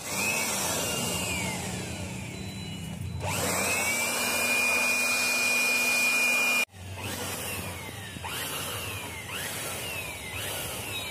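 Handheld electric air blower (Jakmister) running, blowing dust out of an inverter's circuit board: a rushing air noise with a high motor whine that rises as it spins up and holds steady. It cuts off abruptly partway through, then runs more quietly with a series of short falling whines.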